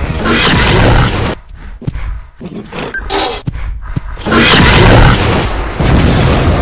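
Cartoon dinosaur roar sound effects: about four long, loud, noisy roars with short gaps between them, the last one mixed with a deep boom as the ground cracks.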